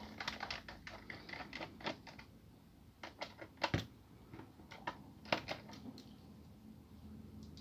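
Light clicks and ticks of a small screwdriver working screws out of a laptop's plastic bottom case. A quick run of clicks comes first, then a few scattered louder clicks, and it goes quiet for the last second or so.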